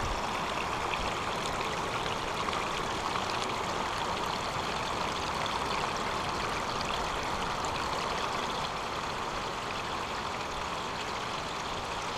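Running water of a stream, a steady even rushing.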